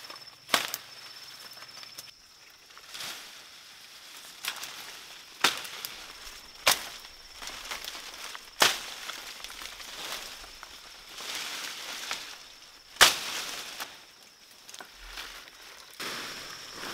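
Tall leafy grass stalks snapping sharply as they are broken off by hand, about seven cracks at irregular intervals with leaves rustling between them, the loudest near the end. A steady high-pitched drone comes and goes behind them.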